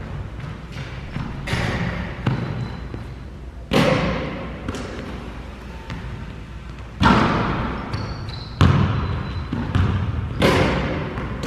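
Basketballs bouncing on a hardwood gym floor. Four loud bangs a few seconds apart each ring on in the echo of a large, empty gym, with smaller knocks between them.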